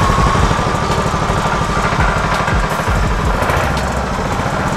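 Small single-cylinder petrol engine running steadily just after starting, driving a disk mill flour grinder.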